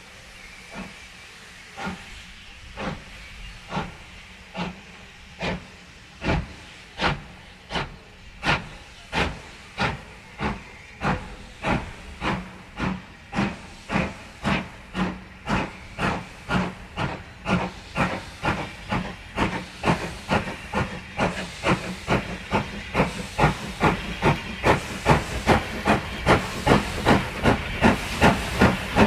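Steam locomotive's exhaust beats as it pulls away under load, the chuffs starting about a second apart and growing steadily faster and louder, over a steady hiss of steam.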